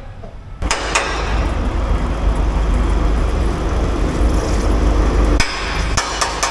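A motor vehicle running close by with a loud, steady low rumble. A few sharp knocks and clanks come about half a second in and again near the end.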